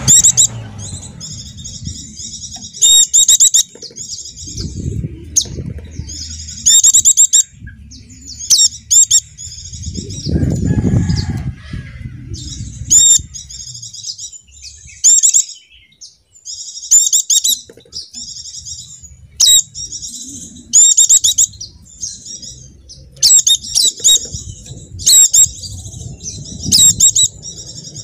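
White-eye (pleci dakun) singing: bursts of rapid, high-pitched twittering, each a second or so long, repeated again and again, with a low rumble underneath at times.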